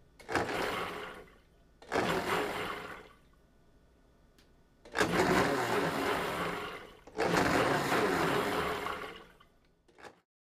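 Blendtec Designer 725 blender pulsed four times, the motor spinning up in short bursts of one to two seconds and stopping between them.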